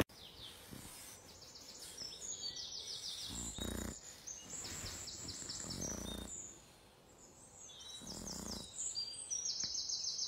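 Songbirds singing: quick repeated high trills and chirps, with a few brief, soft, low muffled sounds in between.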